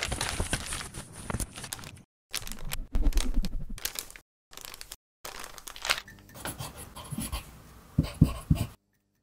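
Paper crinkling and tearing in a series of short sections broken by abrupt gaps of dead silence; it stops shortly before the end.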